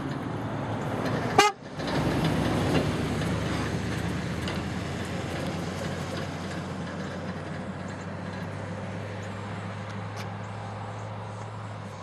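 A park maintenance vehicle passes close by with its engine running. Its sound swells after a brief loud sound about a second and a half in, then fades into a steady low hum.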